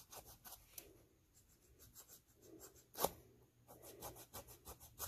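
Small nail file scraping back and forth across a toenail in quick, short, faint strokes, with a sharper click about three seconds in.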